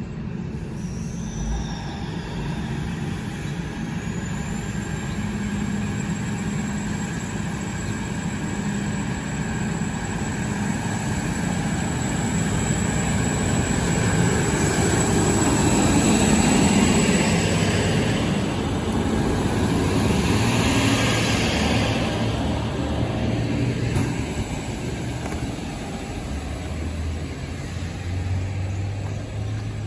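NSW TrainLink Endeavour diesel railcar under way, its engine and transmission growing louder as it runs close by, peaking about halfway through, then easing off as it draws away. A steady high whine runs through it.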